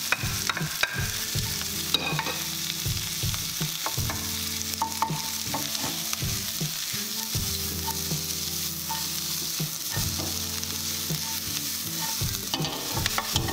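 Leeks and onion sizzling in hot oil in a wok, stirred and tossed with a wooden spatula. The steady sizzle is broken by many quick scrapes and taps of the spatula against the pan.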